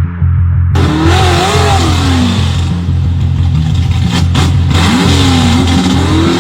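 A car engine revving up and down over loud music with a heavy, pulsing bass.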